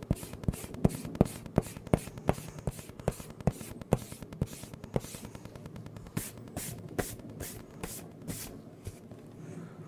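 A rubber eraser rubbed briskly back and forth on drawing paper on a clipboard, about three scratchy strokes a second, rubbing out the pencil guidelines under an inked drawing. The strokes thin out and stop near the end.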